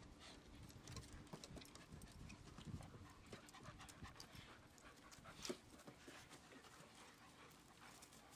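Faint dog panting with light, scattered clicks of claws and footsteps on wooden deck boards, and one louder knock about five and a half seconds in.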